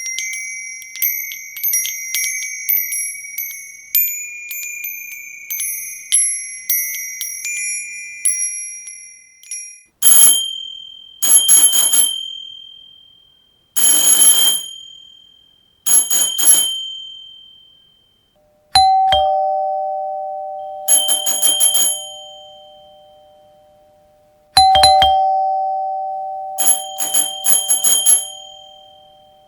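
A run of different doorbell sounds, one after another. For about the first ten seconds a high electronic chime plays a tune of quick ringing notes. Next come several bursts of rapid high ringing. About two-thirds of the way in, a lower two-tone ding-dong chime sounds twice, with more bursts of rapid high ringing between them.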